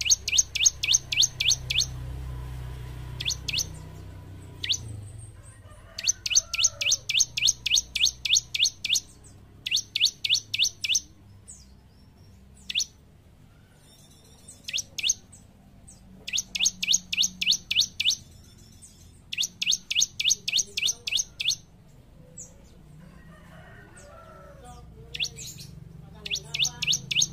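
Bar-winged prinia (ciblek) singing in fast trains of sharp, high repeated notes, about seven a second. Each train lasts one to three seconds, with short pauses and a few single chirps between.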